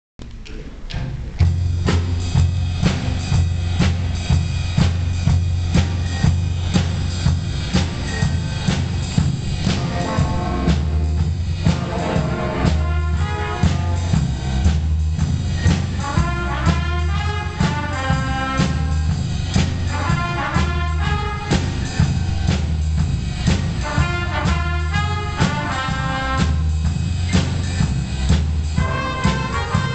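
Student jazz big band playing: a drum kit and upright bass lay down a steady groove, and the horn section of trumpets and saxophones comes in with riffs about ten seconds in.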